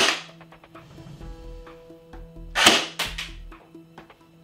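CYMA CM032A electric airsoft M14 firing single shots on semi-auto: two sharp shots, one at the very start and one about two and a half seconds in, the second followed closely by a smaller click.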